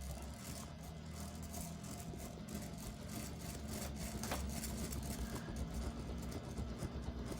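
Restored early-1900s Westinghouse Deluxe ceiling fan running, its motor giving a low steady hum with the rush of air from the blades, growing slightly louder as it comes up to full speed. A single faint click about four seconds in.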